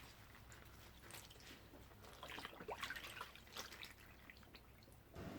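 Faint water dripping from freshly rinsed, hand-wrung clothes: a scatter of small drips and splashes, busiest about two to four seconds in.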